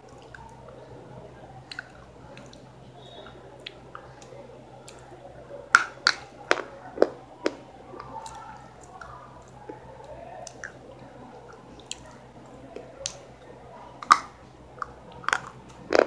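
A person chewing a small bite of food close to the microphone, with quiet mouth noises and sharp crunches: a run of about five, two a second, some six seconds in, and a few more near the end. A low steady hum lies under it.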